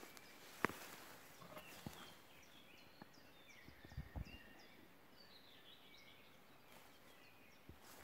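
Faint birdsong, a run of short chirps and trills. A sharp click comes just under a second in, and a few soft low thuds around four seconds in, footsteps through tall grass.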